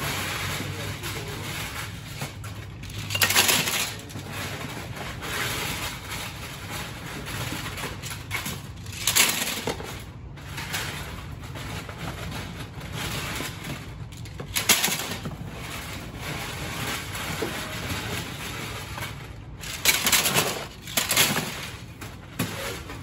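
LEGO plates clattering against each other and a plastic bin-liner bag rustling as hands rummage and sort through a bin, in irregular louder bursts a few seconds apart.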